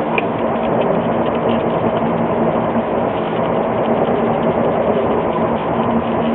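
Steady hum of running machinery, with a low steady tone held throughout.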